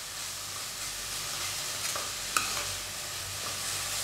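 Julienned vegetables and mushrooms sizzling as they are stir-fried in oil in a non-stick wok, with a plastic spatula scraping and tapping in the pan. A sharper tap comes about two and a half seconds in.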